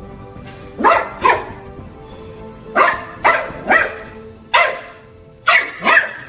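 A dog barking: eight short, sharp barks in groups of two or three, over background music.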